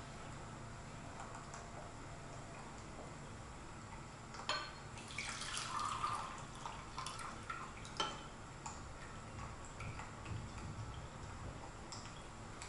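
Tea being poured from a porcelain gaiwan into a glass pitcher: a porcelain clink about four seconds in, then a couple of seconds of trickling liquid, then another sharp clink and a few small taps of porcelain and glass.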